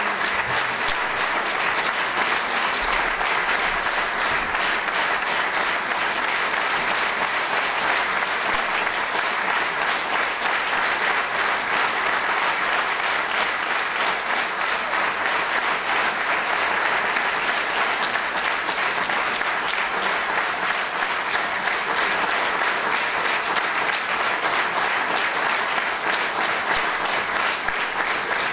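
Concert audience applauding, a dense, steady clapping that holds its level throughout.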